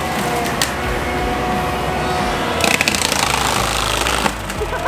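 Cat 299D compact track loader with a forestry mulcher head running hard, the spinning toothed drum grinding into a standing tree over the diesel engine, with a steady whine. About two and a half seconds in, the grinding turns harsher and rougher for a couple of seconds as the drum bites into the wood.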